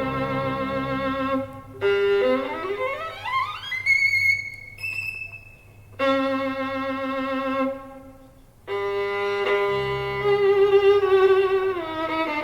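Violin music played back from a vinyl record on a hi-fi system with Yamaha NS-1 speakers. The violin holds long notes with vibrato over low accompanying notes, and about two seconds in plays a fast climbing run up to a high held note.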